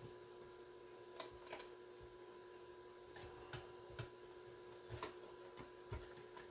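Faint, scattered clicks and light knocks of a small metal-cased microphone test unit being handled and turned over on a workbench, over a steady faint electrical hum.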